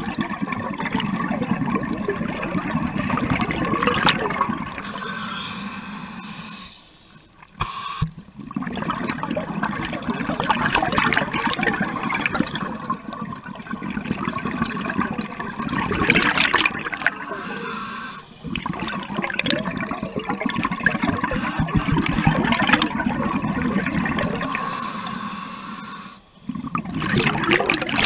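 Scuba regulator exhaust bubbles rushing and gurgling underwater in long exhalations, broken three times by short, quieter pauses as the diver breathes in.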